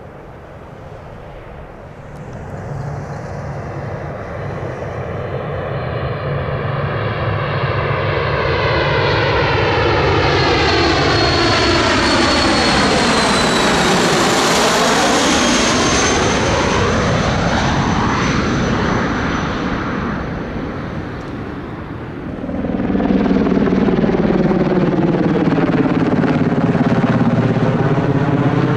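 An Avro RJ100's four Honeywell LF507 turbofans grow louder as the jet comes in low on landing approach and passes overhead, with a high whine that drops in pitch as it goes by, then fade away. About two-thirds of the way in this cuts suddenly to a loud, steady Sikorsky CH-148 Cyclone helicopter flying past.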